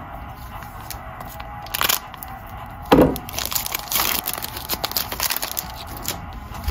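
A plastic-wrapped trading card pack being crinkled and torn open, a run of crackling and rustling with one sharp crack about three seconds in.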